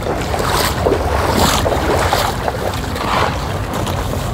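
Flowing river water with wind buffeting the microphone, the rush swelling louder about once a second.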